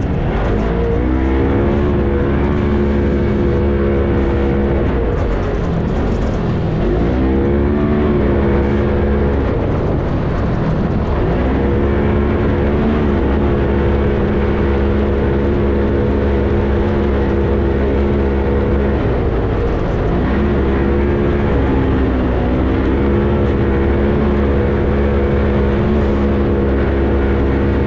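Engine of an off-road dune race vehicle heard on board, running hard at high revs. Its pitch dips and climbs back several times as the throttle is eased and reopened.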